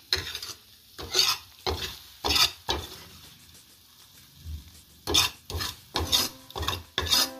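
A spoon scraping sauce out of a wok in short repeated strokes, about two a second, with a pause of about two seconds in the middle.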